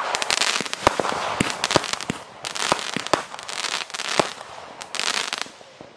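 Fireworks going off: sharp bangs mixed with dense crackling, coming in several waves and thinning out near the end.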